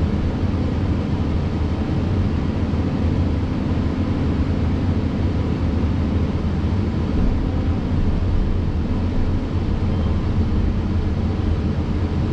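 A Cat next-generation hydraulic excavator's diesel engine and hydraulics run steadily, heard from inside the cab as a constant low hum. The boom and stick are moving on their own through a semi-automatic hydraulic calibration cycle.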